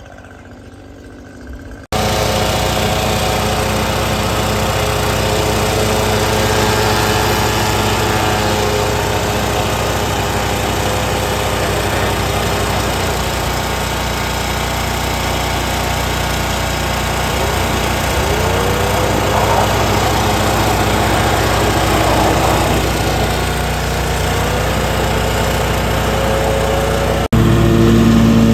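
Commercial lawn mower engine running steadily at working speed. It cuts in abruptly about two seconds in, and its pitch rises twice in the second half.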